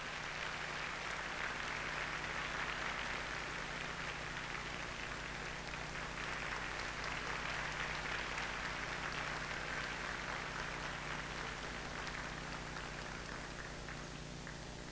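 Audience applauding steadily, easing off slightly near the end, over a faint steady low hum.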